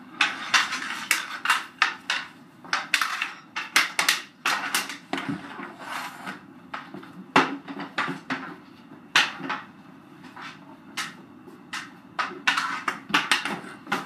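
Hockey sticks clacking on a concrete floor during a game of floor hockey: a fast, irregular run of sharp clacks in several flurries, densest near the start, around four to five seconds in, and near the end.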